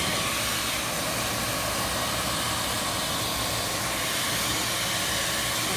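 Vacuum cleaner run as a blower, its motor running and air rushing steadily out of the hose nozzle aimed straight at a wet car window.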